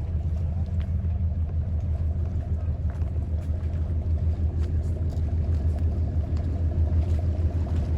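Tour boat's engine running steadily while under way, a deep continuous rumble.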